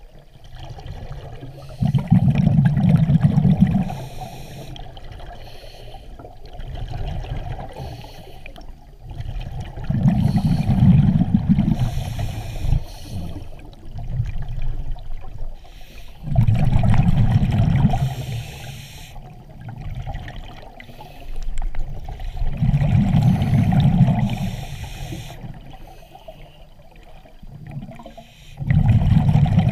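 A scuba diver breathing through a regulator underwater: five loud rushes of exhaled bubbles, each about two seconds long and coming roughly every six seconds, with quieter breathing noise between them.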